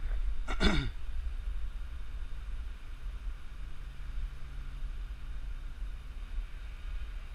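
Wind rumbling on the microphone, with a brief falling vocal sound about half a second in and a faint steady hum from the quadcopter flying high overhead.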